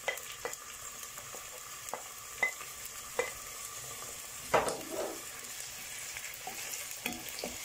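Sliced onion frying in hot oil in a pot, a steady sizzle, while a wooden spatula stirs it and knocks against the pot now and then, loudest a little past halfway. The onion has just gone into the oil to be fried brown.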